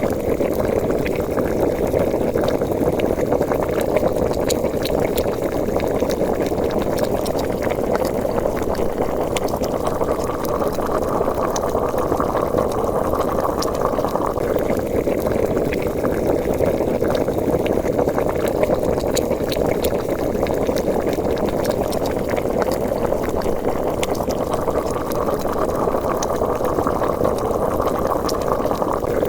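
A pot of liquid boiling, bubbling and popping steadily: a bubbling boil sound effect.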